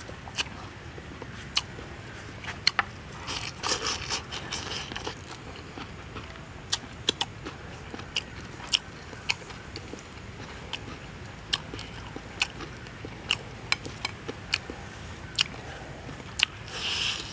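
Close eating sounds: crisp bites and chewing of fried chicken wings and salad, with sharp crunches scattered throughout and a denser run of chewing about four seconds in.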